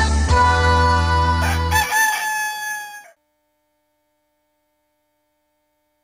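Intro music ending about two seconds in, overlapped by a rooster crow sound effect, one long call that cuts off suddenly about three seconds in.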